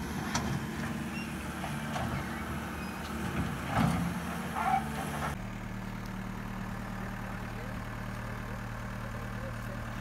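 Case SR200 skid steer loader's diesel engine running, with some knocks and clatter over it in the first half. Just past halfway the sound changes abruptly to a steady idle close by.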